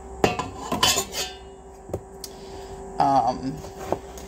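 Chef's knife slicing through yellow squash and knocking on a wooden cutting board: a few sharp chopping knocks, grouped around one second in and again near two and four seconds.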